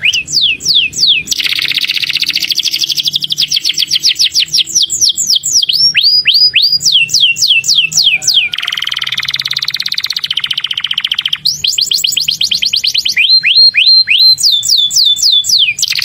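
Domestic canary singing a long unbroken song in repeated phrases: runs of quick falling whistled notes alternate with fast rolling trills, with a harsh buzzy roll about halfway through.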